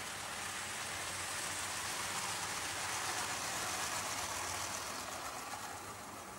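OO gauge model trains running on the track: a steady whirring rattle of wheels on rails and small motors. It swells as a train passes close by around the middle, then fades toward the end.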